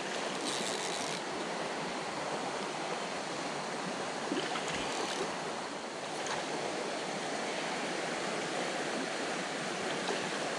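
Steady rush of a shallow, clear creek running over stones and pebbles.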